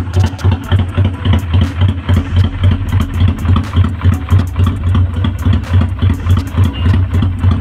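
Honda Steed 400 V-twin motorcycle engine idling steadily, pulsing about four times a second, with light ticking on top.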